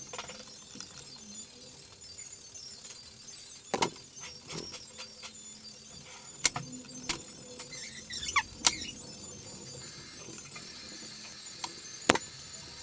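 Hand-repair work noises: a handful of sharp, separate clicks and clinks of tools or small hard parts being handled, with a short falling squeak about eight seconds in.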